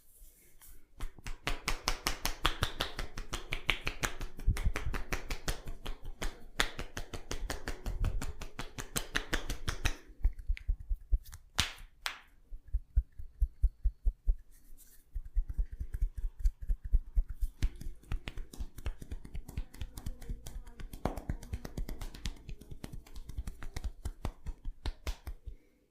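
Rapid, rhythmic hand strikes on a person's head during an Indian head massage. About halfway through they slow to a few louder separate slaps, then speed up again and stop just before the end.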